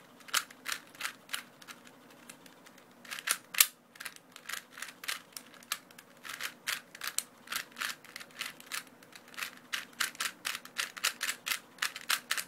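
Plastic Rubik's Cube being turned rapidly during a speed solve: quick runs of sharp clicks and clacks as the layers snap round, with a brief lull about two seconds in and one louder clack soon after.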